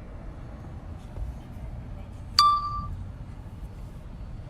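A single bright electronic ding about two and a half seconds in, ringing out briefly, over a steady low rumble.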